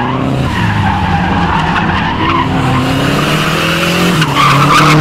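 Nissan 240SX (S14) drifting on wet asphalt: the engine revs fall and rise as the driver works the throttle, over a constant hiss of tyres scrubbing and spraying water. The car gets louder about four seconds in as it swings close.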